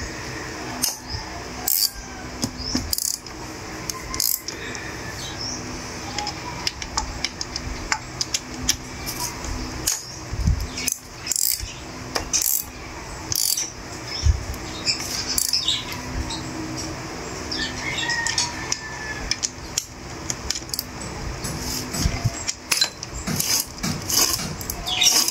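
Irregular metallic clicks and clinks of a socket wrench working the nuts on a chainsaw's side cover.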